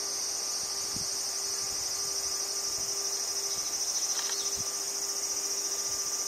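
A steady, high-pitched insect chorus with a fast pulsing trill that holds at an even level throughout.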